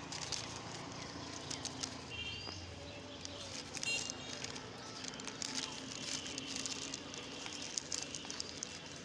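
Plastic litter and a carry bag crinkling and rustling as they are handled, with a couple of short high chirps about two and four seconds in over a faint steady hum.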